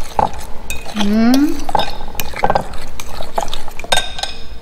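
Metal fork stirring wet batter in a glass mixing bowl, with repeated clinks and scrapes of the fork against the glass.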